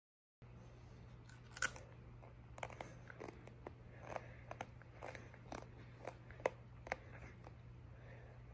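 Faint, irregular crunches of a crisp chip being chewed close to the microphone.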